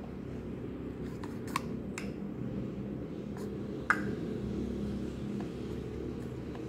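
Small plastic toy cups clicking and tapping as stacked cups are pulled apart and set down: about six short, sharp clicks, the loudest about four seconds in, over a steady low background hum.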